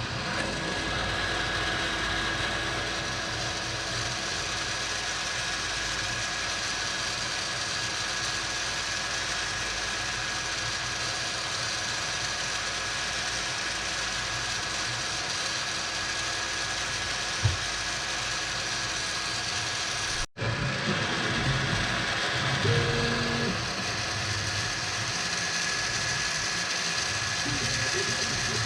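FlashForge Adventurer 4 3D printer running a print: steady fan hum with the whirring and ratcheting of its stepper motors as the print head moves. There is a single click partway through, and the sound cuts out for a moment a little later, then resumes with busier motor movement.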